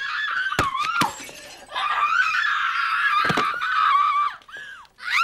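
A young woman screaming in a rage: long high-pitched screams, broken by a short pause about a second and a half in, over sharp crashes of things being smashed, twice in the first second and once again past three seconds.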